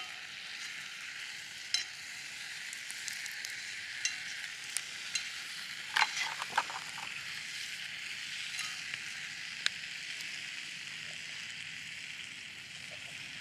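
Steak sizzling over a wood fire: a steady hiss with scattered pops, and a short cluster of louder pops about six seconds in.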